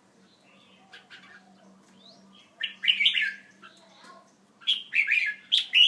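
Pet birds chirping in short bursts of quick, high calls. The calls are faint at first, with louder clusters about two and a half seconds in and again near the end.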